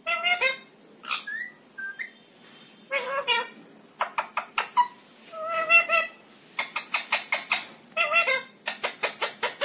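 Indian ringneck parakeet chattering in short, speech-like mimicked phrases, broken by runs of rapid sharp clicks, about six a second, and a couple of short rising whistles.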